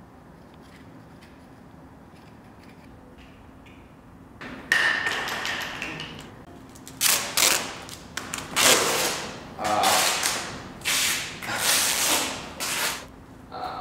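Duct tape being pulled off the roll in a series of long, rasping rips, starting about four and a half seconds in and repeating until near the end, after a few quiet seconds.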